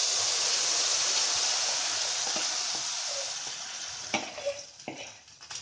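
Wet rice-and-sugar batter sizzling in very hot ghee in a steel kadhai, loud at first and gradually dying down as the batter goes in all at once. A few light knocks come near the end.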